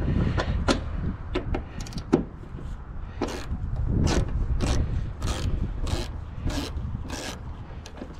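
Socket ratchet wrench clicking as it is worked back and forth on a bolt: a few scattered clicks at first, then even strokes about twice a second from about three seconds in.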